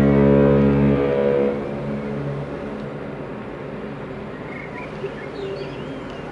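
The Queen Mary 2's deep ship's horn ends a long, steady blast about a second in, and its sound dies away over the next second or so. After that there is the open-air background, with a few faint bird chirps.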